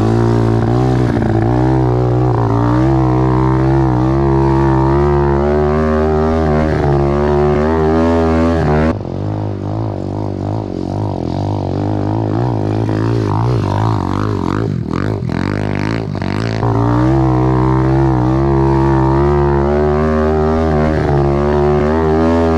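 Apollo pit bike's single-cylinder four-stroke engine revving up and down under a rider working through a run of whoops, its pitch rising and falling with the throttle. About nine seconds in the sound abruptly turns duller and slightly quieter, and about seven seconds later it returns to full.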